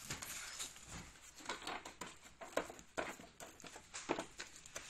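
Scattered light knocks and clicks with plastic-film rustling, from hand packing of a firework cake: cardboard tubes and a cake being handled and wrapped in clear film.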